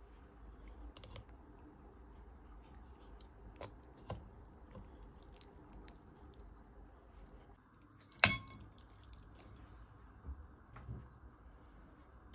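Soft squishing and handling of wet chhena (fresh paneer curds) being worked in a metal colander, with small clicks throughout, a sharp clink about eight seconds in and another right at the end.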